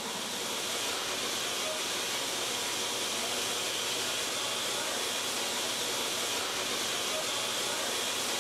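Steady hiss of steam escaping from the standing LMS Princess Coronation Pacific 6233 Duchess of Sutherland.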